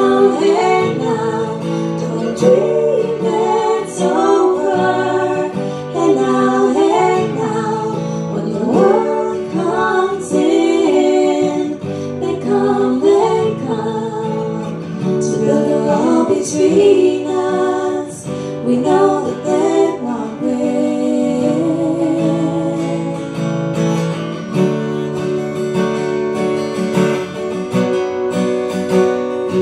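Acoustic guitar being strummed under voices singing wordless harmonies with vibrato.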